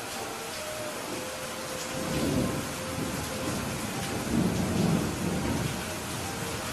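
Steady rain falling, with two low rumbles of thunder, about two seconds in and again about four and a half seconds in.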